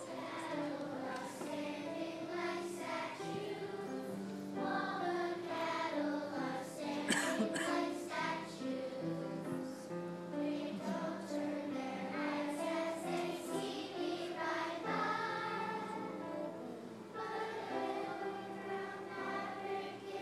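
Children's choir singing a song together, in phrases of held notes.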